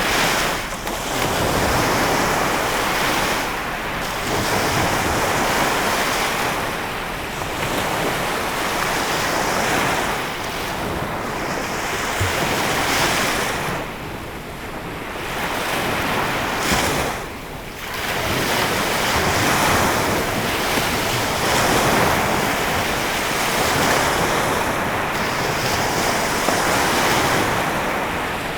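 Lake Michigan waves washing onto the shore, a steady rush that swells and eases every three to four seconds.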